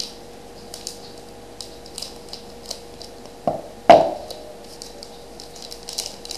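Hockey card pack wrapper being crinkled and torn open by hand, a run of light crackles, with a sharp knock about four seconds in that is the loudest sound. A faint steady hum underneath.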